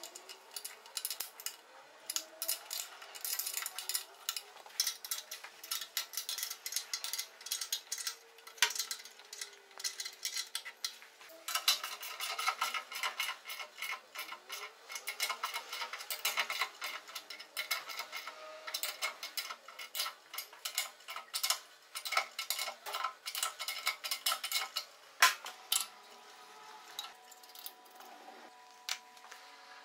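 Small metal parts and hand tools clinking and clicking against each other as they are handled, many light irregular strikes, quieter near the end.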